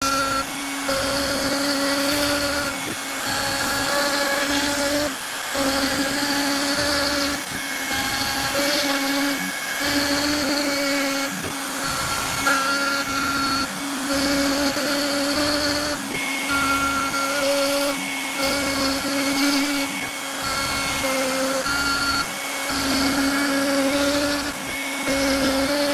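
CNC-mounted trim router spindle running at high speed with a steady whine. Its V-bit carves grooves into a hardwood board, and the sound dips briefly every couple of seconds as the cut changes direction.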